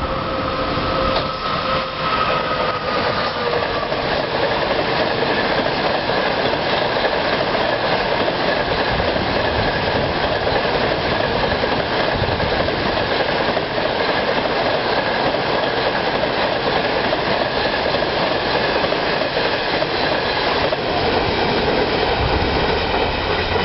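A China Railways SS8 electric locomotive hauling a passenger train past. Its whine falls in pitch about two seconds in as it passes. Then the coaches' wheels run steadily along the rails with a thin high-pitched squeal, easing off near the end as the last coach goes by.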